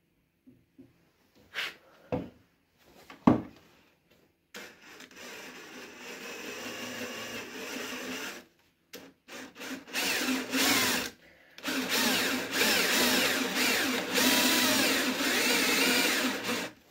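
A few knocks, then a cordless drill boring at an angle into the wooden back leg of a chair to make holes for dowel pins. It first runs more lightly for about four seconds, then loud from about ten seconds in, its pitch wavering under load, with a short break, and it stops just before the end.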